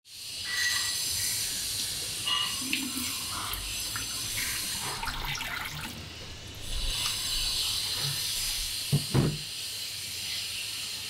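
Water splashing and bubbling in a shallow glass tank as a school of small feeder fish darts about, with two short knocks about nine seconds in.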